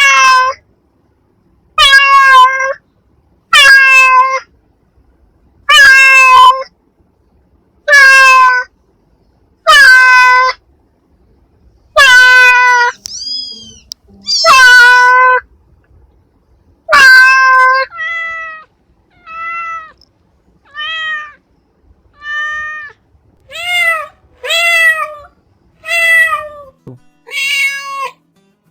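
Domestic cat meowing over and over. Loud, drawn-out meows come about every two seconds, then softer, shorter meows follow more quickly in the second half.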